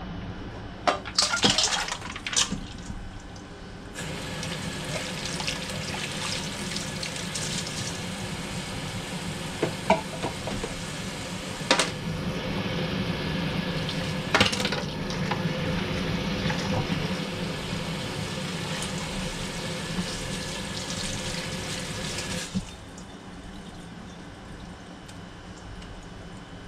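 Kitchen tap running into a stainless steel sink as pickleweed is rinsed in a metal colander. There are a few clanks early on as the greens are tipped into the colander, and occasional knocks of the colander against the sink. The water shuts off about three-quarters of the way through.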